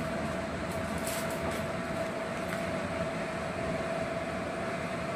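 Steady mechanical hum with a constant mid-pitched tone, with a few faint light ticks about a second in.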